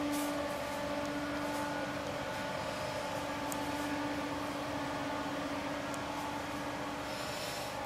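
Steady mechanical hum with one constant low tone over a light hiss, and a few faint clicks.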